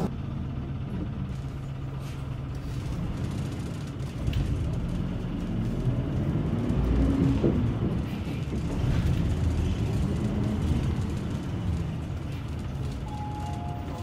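City bus engine and road noise heard from inside the cabin while the bus drives. A steady low rumble whose engine note rises and falls partway through as the bus changes speed.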